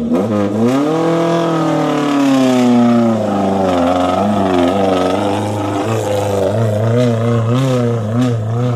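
Suzuki Katana 4x4's engine revving hard under load on a steep muddy climb, its pitch wavering up and down, with no let-up.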